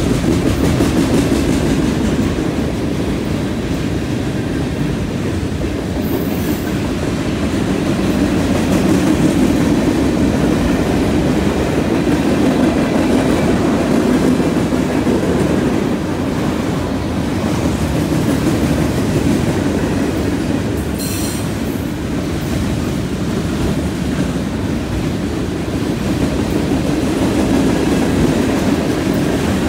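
Freight cars of a Canadian National train rolling past close by, centerbeam lumber flatcars then tank cars. The wheels on the rails make a steady rumble with clickety-clack over the rail joints, and a brief high squeal comes about 21 seconds in.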